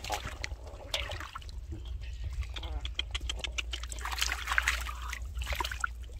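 Shallow floodwater splashing and trickling, with many short, irregular splashes and clicks over a steady low rumble.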